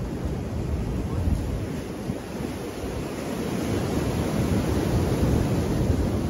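Sea surf surging and breaking against the concrete tetrapods of a breakwater, with wind rumbling on the microphone. The wash swells louder in the second half.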